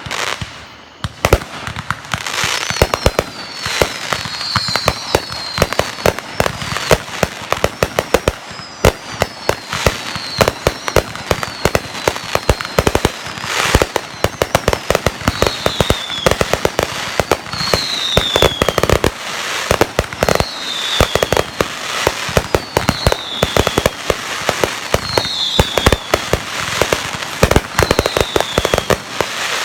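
Fireworks going off: a dense, continuous string of rapid cracks and pops, with short falling whistles repeating every couple of seconds.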